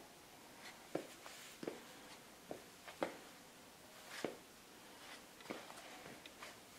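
Faint, irregular taps and scuffs of canvas slip-on sneakers' rubber soles on a concrete floor as the wearer shifts and turns his feet.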